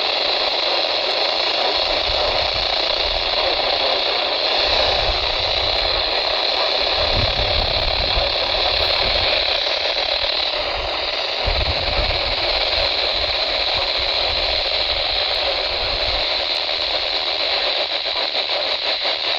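Radio static: a steady hiss from a receiver with no clear signal, holding level throughout.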